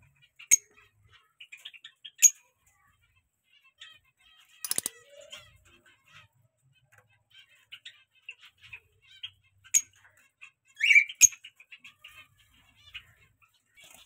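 Caged lovebirds and other pet birds chirping: a steady scatter of soft chirps broken by several sharp, loud single calls, a harsh call about five seconds in, and a loud rising call near the end.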